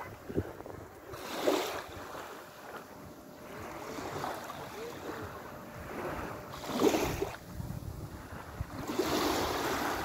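Small waves washing on the shore, with wind buffeting the microphone; louder washes come about a second and a half in, around seven seconds, and near the end.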